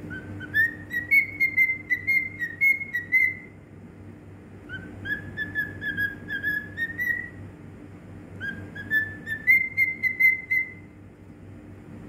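Cockatiel whistling its song: three phrases of short, clear notes, each phrase stepping upward in pitch, with brief pauses between phrases.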